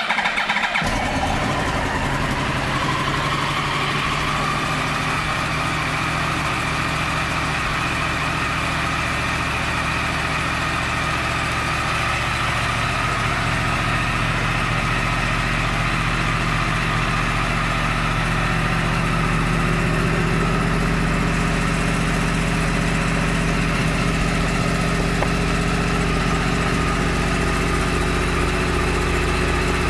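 2014 Yamaha YZF-R1 Crossplane's inline-four engine firing up and settling into a steady idle. The sound comes in suddenly right at the start and then runs evenly, a little louder in the second half.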